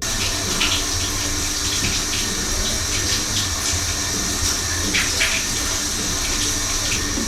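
Water running steadily from a tap, with a few faint clicks and knocks over it.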